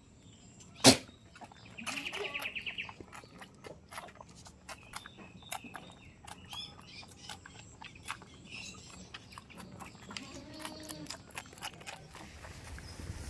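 Goat pen sounds: one sharp knock about a second in, then many small clicks and rustles. A brief rapid chirping comes at about two seconds, and a short faint bleat comes near the end.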